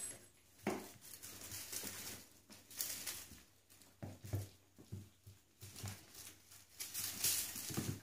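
Bengal kittens scampering and pouncing on a hard laminate floor: an irregular patter of paws and scuffs, with a few soft thumps as they land, and the light rustle of a feather wand toy.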